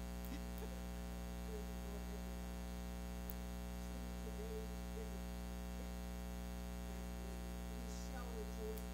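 Steady electrical mains hum and buzz from the sound system. Faint wavering pitched sounds come and go behind it in the middle and again near the end.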